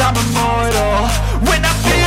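Background hip-hop music with sustained bass notes under a melodic line.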